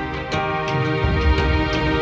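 Background music with a steady beat; the bass line drops out and comes back in about a second in.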